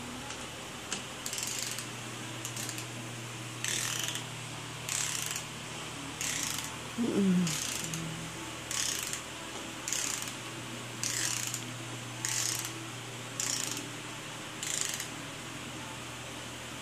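Ratchet wrench clicking in short repeated strokes, about one a second, as a bolt inside an engine block is run down. A steady low hum runs underneath.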